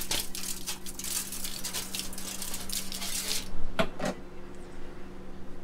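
Lemon pepper shaken from a shaker over a fish on aluminium foil: a fast dry rattle of granules for about three and a half seconds, then two sharp knocks close together.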